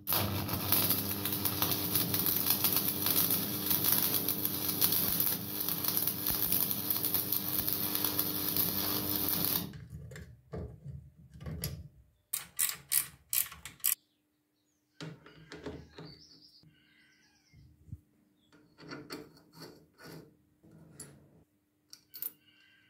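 Stick (arc) welder burning a rod on steel angle for about ten seconds: a loud, dense crackling hiss over a steady hum, cut off sharply when the arc is broken. After that come scattered metallic clicks and knocks of steel parts being handled and fitted onto a rotary-table chuck.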